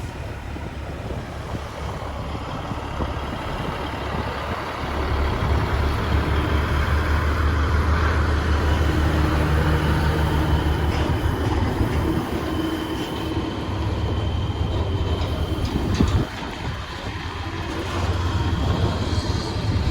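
Heavy truck's diesel engine running with a deep, steady hum. It grows louder about five seconds in, eases off briefly around sixteen seconds and builds again near the end.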